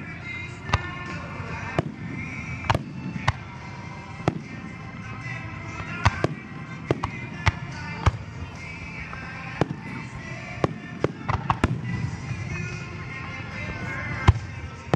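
Aerial fireworks shells bursting in quick, irregular succession: many sharp bangs over a continuous rumble, the loudest one near the end. Music plays underneath.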